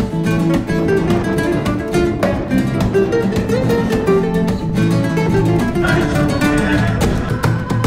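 Background music: acoustic guitar played with fast plucked notes, steady throughout.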